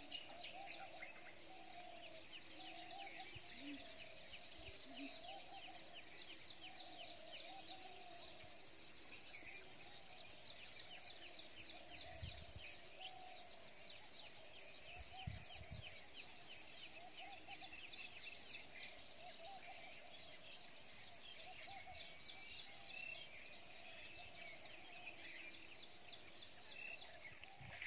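Wetland animal chorus: a steady high-pitched insect trill with many repeating chirping and warbling calls layered over it.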